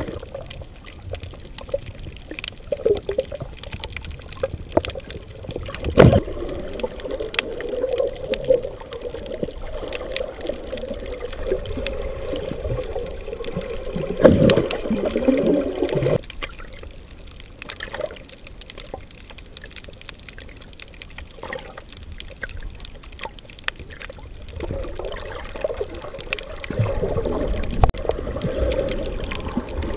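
Water heard through a GoPro's waterproof housing underwater: muffled sloshing and bubbling as a snorkeler swims. There is a sharp knock about six seconds in and louder splashing around fourteen seconds as the fins kick near the surface, then a quieter stretch of several seconds before the sloshing returns.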